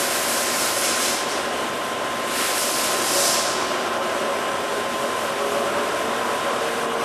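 Summit 36DC heavy-duty engine lathe running in high gear, its 35-1/2 inch four-jaw chuck spinning at about 110 RPM: a steady mechanical running noise with a constant thin whine. A higher hiss swells briefly about three seconds in.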